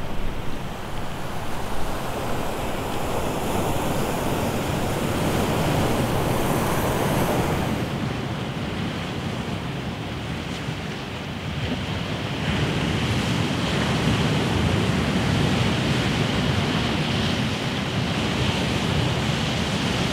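Sea surf breaking and washing over seaweed-covered rocks, a steady rushing noise, with wind rumbling on the microphone.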